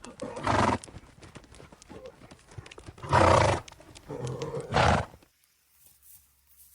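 Horse sounds: hooves clip-clopping, with three loud horse calls about half a second, three seconds and five seconds in. The sound stops about five seconds in.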